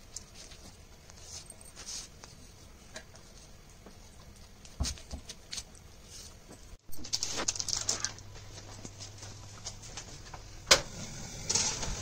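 A knife slicing a rolled pastry log on baking paper over a wooden chopping board: soft, scattered taps and paper rustles. About seven seconds in, the sound changes to louder rustling of baking paper over a steady low hum, with one sharp knock about a second before the end.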